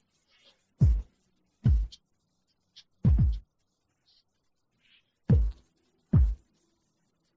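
Isolated rock drum track: five low, booming drum hits, bass drum and toms, spaced irregularly about a second apart, each dropping in pitch as it dies away, with near silence between.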